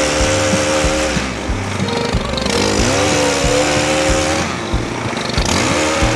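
Chainsaw cutting oak branches, its engine speed holding, dropping away and revving back up in runs of a second or two. A machine's engine runs underneath.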